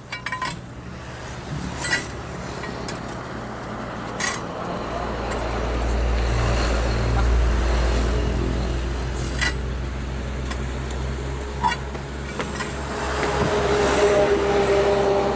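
Heavy diesel truck engine running with a deep low rumble that comes in about four and a half seconds in and stays loud, with a steadier, higher tone joining near the end.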